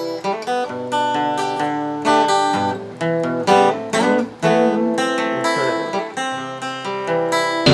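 Acoustic guitar music: single notes picked one after another, with a few strummed chords.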